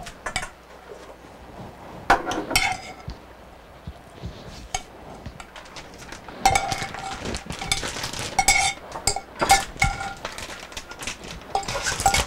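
A metal spoon scraping and clinking against a casserole dish, scooping a sausage and onion mixture out into a mixing bowl. A few scattered scrapes at first, then from about halfway a quick run of ringing clinks.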